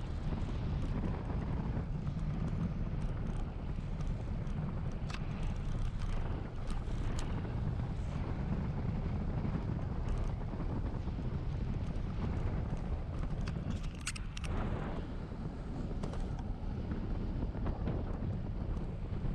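Wind buffeting the microphone on a fast bicycle descent: a steady low rumble, with scattered clicks and rattles from the ride and a cluster of them about 14 seconds in.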